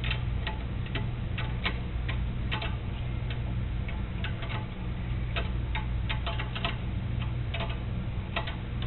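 Socket ratchet wrench clicking in irregular short runs while a half-inch lock nut is run down tight, over a steady low hum.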